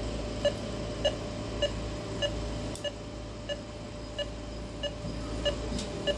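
Veterinary anesthesia monitor beeping in time with the anesthetized dog's pulse: short beeps of one steady pitch, about 100 a minute, over a low room hum.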